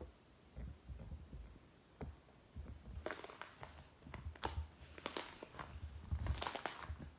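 Iceberg slime being handled: soft low thuds at first, then, from about three seconds in, dense crackling and crunching as the slime's dried crust is pressed and broken.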